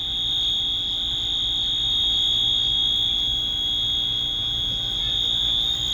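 School fire alarm sounding one steady, unbroken high-pitched tone.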